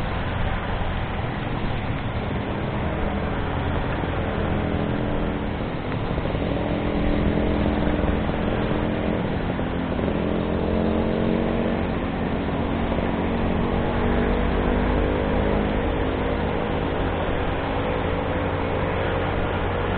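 Motorcycle running on the road, its engine note climbing gradually as it accelerates over steady wind and road noise.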